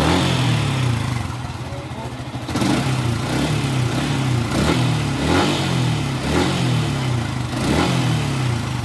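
Yamaha Sniper 150 motorcycle's single-cylinder four-stroke engine on its stock exhaust, revved in about half a dozen short throttle blips. Each time the pitch climbs and falls back toward idle.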